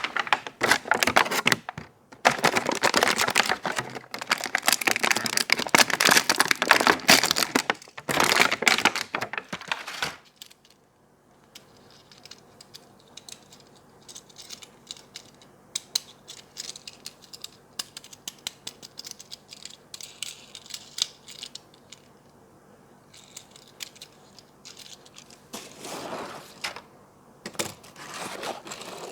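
Toy packaging being handled and opened: dense crinkling and rustling of plastic and cardboard for about ten seconds, then scattered light clicks and taps, with another short burst of crinkling near the end.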